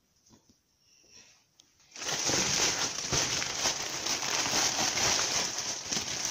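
Plastic bag and packaging rustling and crinkling as groceries are handled. It starts abruptly about two seconds in, after faint handling sounds, and goes on steadily.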